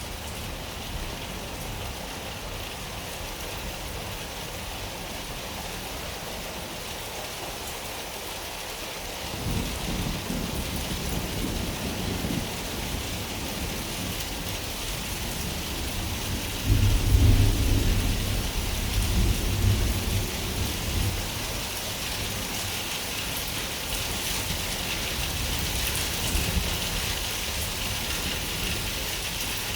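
Steady rain with a roll of thunder: a low rumble sets in about a third of the way through, is loudest a little past the middle, and dies away again under the rain.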